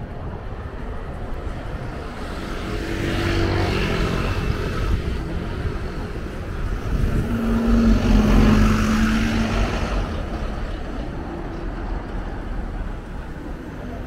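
Street traffic: vehicles passing by over a steady low rumble, one swelling past about three seconds in and a louder one about eight seconds in.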